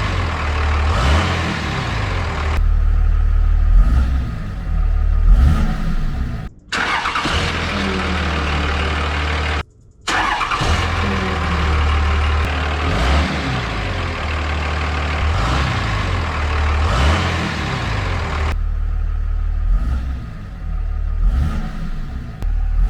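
5.9 Cummins turbo-diesel in a 2003 Dodge Ram 2500, breathing through a new unsilenced intake hose, idling and revved several times, its pitch rising and falling with each rev. The sound cuts out briefly twice, about six and a half seconds in and near ten seconds.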